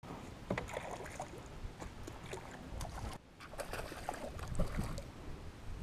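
Quiet ambience aboard a small fishing boat: faint wind and water noise with scattered light clicks and knocks. It drops out briefly a little past three seconds in.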